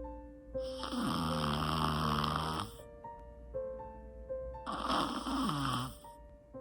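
A Pomeranian snoring: two long snores, each falling in pitch, over soft background music of held notes.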